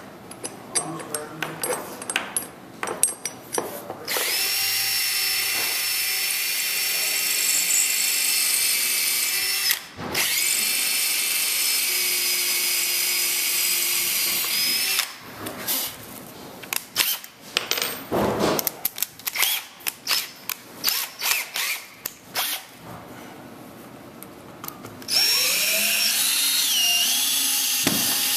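Cordless drill fastening a steel newel-post mounting plate to a wood floor. It runs steadily in three spells of several seconds, with small clicks from handling the bolt and plate before and between the runs. The pitch dips during the last run.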